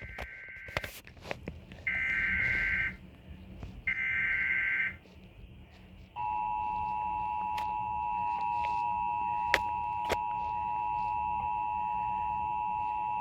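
Emergency Alert System tones opening a severe thunderstorm warning: the end of one SAME header data burst and two more harsh, screeching bursts about a second each, two seconds apart. About six seconds in the steady two-tone attention signal (853 and 960 Hz) begins and holds.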